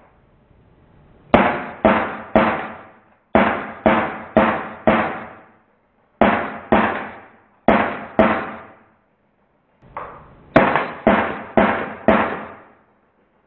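Drozd Blackbird CO2 BB gun firing in short strings of shots, about two a second: three, then four, two, two and five. Each crack rings out briefly before the next.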